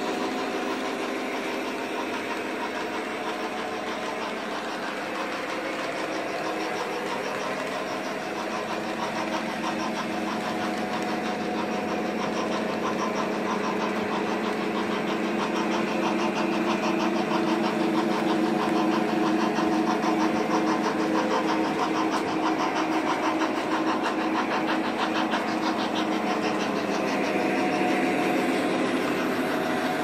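Lionel O gauge SD60M model diesel's onboard engine sound effect running steadily from its speaker, over the fast, even clatter and hum of model locomotive wheels and motors rolling on track. It grows a little louder about halfway through.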